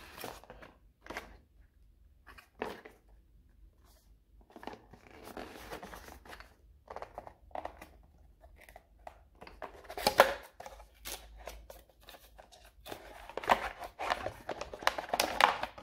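Cardboard packaging being handled: a white inner cardboard box slid out of its carton and its lid flaps opened, with scraping, rubbing and light knocks. The loudest moments come about ten seconds in and over the last few seconds.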